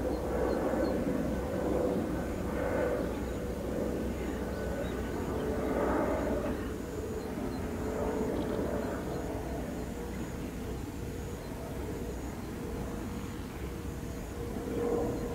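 Jet airliner's engines overhead on approach: a steady low rumble with a held droning tone, swelling now and then and slowly fading.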